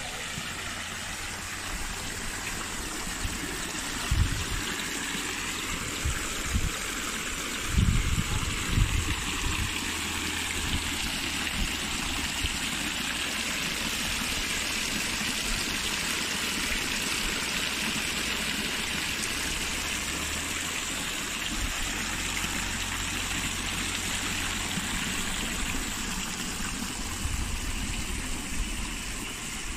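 Garden fountain water spilling from its basin and splashing steadily into a koi pond, growing fainter near the end. A few low thumps on the microphone about 4 and 8 seconds in.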